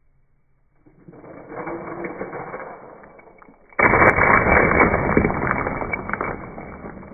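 Ice cubes dumped onto a pile of plastic-wrapped hard candies on a table: a sudden loud clatter of ice and candies scattering about four seconds in, fading over the next few seconds. A quieter rattle comes before it.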